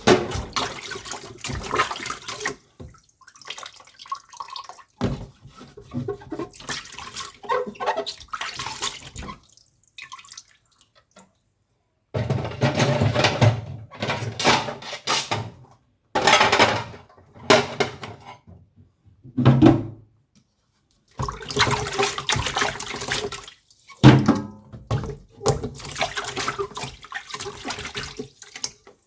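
Water splashing and pouring in irregular bursts of a few seconds, with short pauses between.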